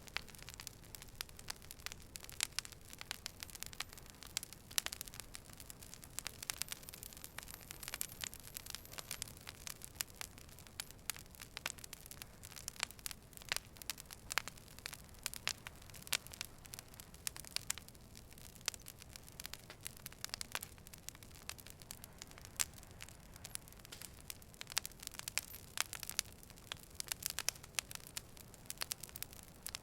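Fire burning, with frequent irregular sharp crackles and pops over a steady low hiss.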